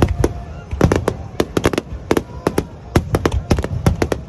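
Aerial fireworks going off in rapid succession: a dense run of sharp bangs, about five a second, at uneven spacing.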